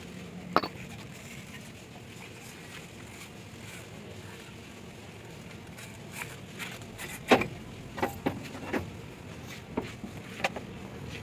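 Sharp metallic clinks and knocks from handling an engine belt pulley, belt and tools: one about half a second in, then a cluster of about six between seven and ten and a half seconds in. A steady low background noise lies under them.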